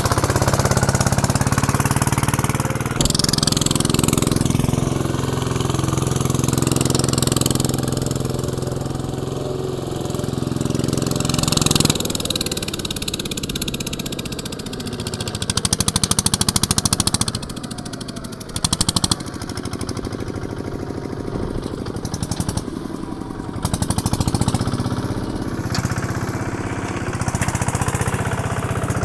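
Kubota RT140 single-cylinder diesel engine of a homemade cage-wheeled riding tractor running under load through mud. Its note and loudness shift a few times, with uneven surges and dips near the middle.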